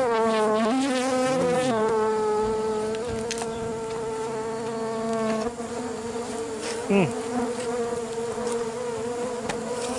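A swarm of Fusco stingless bees (Tetragonula fuscobalteata) buzzing close around the microphone in a steady hum, the colony stirred up by its hive being opened. The pitch wavers as bees circle in the first couple of seconds, and one bee whines past with a sharply falling pitch about seven seconds in.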